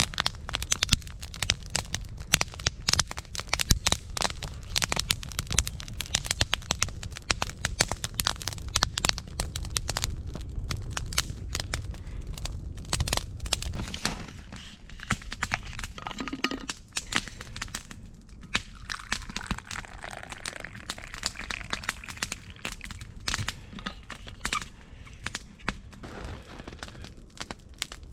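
Wood campfire crackling: a dense, irregular run of sharp pops and snaps over a low steady rumble.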